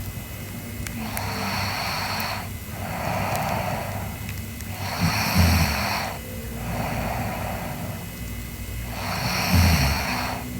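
A sleeping girl's slow, noisy breathing, with a low snore on two of the breaths: about five seconds in and near the end.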